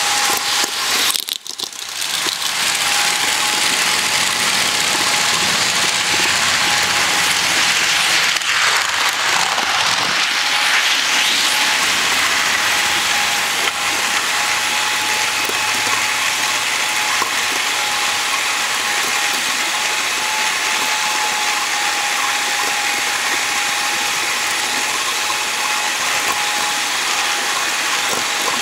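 Steady whir of a small electric motor and gearing, with one constant high whine, over the rolling rattle of HO-scale model train wheels on the track. The sound dips briefly about a second and a half in.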